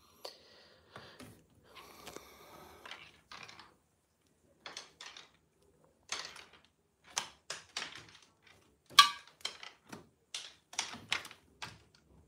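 Domestic cat playing with a toy on a string: a run of sharp, irregular clicks and taps, loudest about nine seconds in, after a few seconds of soft rustling.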